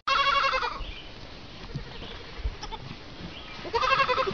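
Young goat kid bleating twice: a high, wavering bleat right at the start and another near the end.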